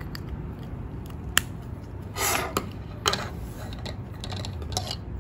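Handling of a USB cable and an Arduino Uno board: a USB-B plug pushed into the board's socket, then the board and cable set down on a desk. The sound is a few sharp clicks and a short rustle.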